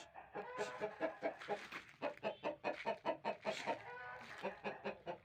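Parrot-beak aseel chickens clucking: a rapid run of short, pitched clucks, several calls overlapping.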